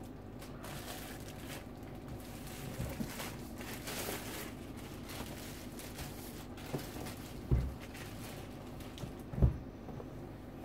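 Clear plastic wrap crinkling as it is pulled off a box, then two dull thumps about two seconds apart as the box is handled and set down, the second the loudest.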